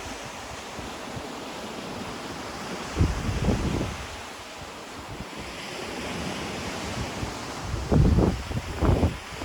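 Ocean surf washing steadily on the shore, with wind buffeting the microphone in low rumbling gusts about three seconds in and again near the end.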